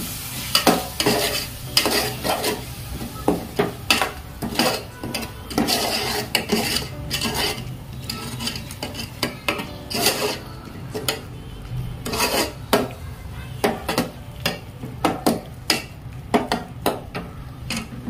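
Perforated steel spatula stirring and scraping thick masala paste around an aluminium pot, with repeated irregular clinks and scrapes against the pot and a soft sizzle of the spices frying in oil.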